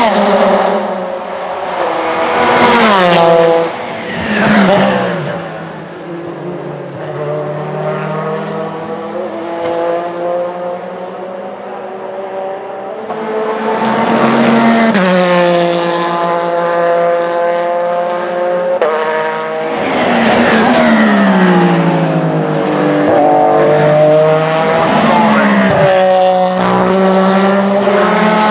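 Porsche 911 RSR (991) GTE race car's mid-mounted 4-litre flat-six racing past several times at full throttle. The engine note climbs and steps up through gear changes and drops in pitch as each pass goes by.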